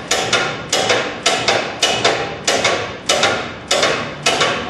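Hammer blows on metal: a steady run of sharp, ringing strikes, about two a second and often in quick pairs, stopping near the end.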